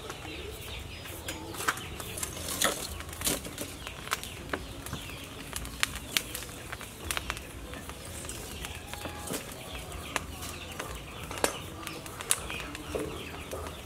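Wood fire crackling, with many scattered sharp pops, while a cow's leg is held in the flames to singe off its hair and skin.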